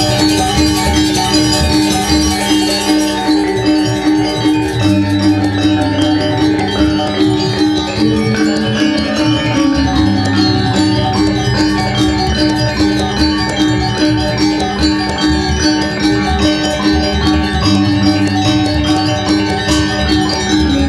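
Balinese gong gamelan playing: bronze-keyed metallophones struck with wooden mallets in fast, dense strokes over low ringing notes that change every second or two.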